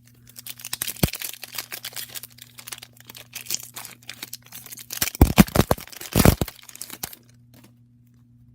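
Trading card pack wrapper being torn open and crinkled in the hands, with the loudest rustling and a few bumps about five to six and a half seconds in. A faint steady hum runs underneath.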